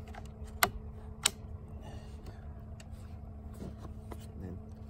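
Two sharp plastic clicks a little over half a second apart, about a second in, from the control lever of a Stihl MS 250 chainsaw being set while the saw is not running, over a faint steady hum.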